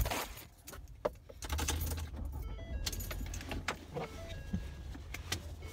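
Car keys jangling, with scattered small clicks and knocks, over a low steady rumble inside a car that strengthens about a second and a half in.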